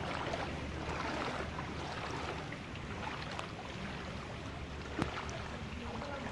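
Rain falling on shallow floodwater: a steady hiss with scattered small drip ticks, and one sharp tap about five seconds in.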